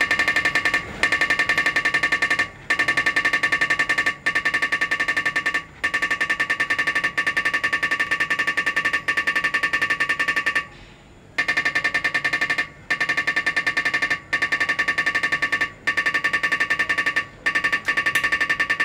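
Dot-peen marking machine's stylus hammering rapidly into a BMW M3 six-cylinder engine block as it stamps the serial number: a fast, buzzing rattle with a ringing pitch. It stops briefly about every second and a half between characters, with a longer pause about eleven seconds in.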